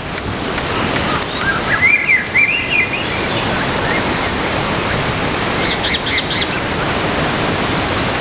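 Steady rush of heavy rain, with a bird singing short chirping phrases over it about one to three seconds in and a few quick high notes near six seconds.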